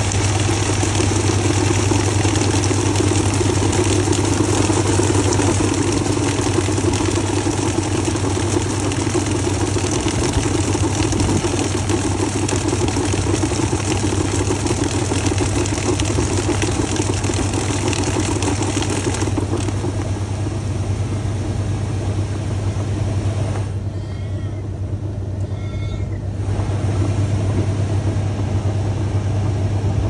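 GE Profile top-load washing machine running a load of towels: a steady motor hum under the hiss and splash of water spraying into the tub. The hiss drops away suddenly about 19 seconds in, leaving mainly the hum and the churning of the load.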